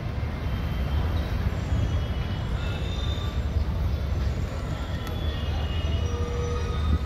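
A train running through the railway station: a steady low rumble with a few faint, short high squeals.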